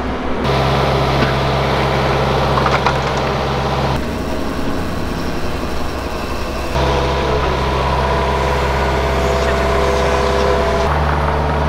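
An engine running steadily at a constant speed, its tone changing abruptly a few times.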